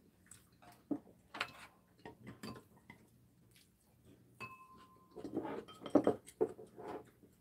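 Metal spoon and chopsticks clinking and scraping against ceramic bowls during a meal, with scattered clicks at first and a busier, louder run of clinks around six seconds in. A short clear tone sounds a little past halfway.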